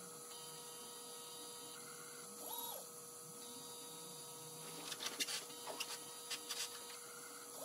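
Faint steady electrical hum from a motorized inverted microscope. A short stepper-motor whine rises, holds and falls about two and a half seconds in, as the stage or focus drive moves. A scatter of small clicks follows between about five and six and a half seconds.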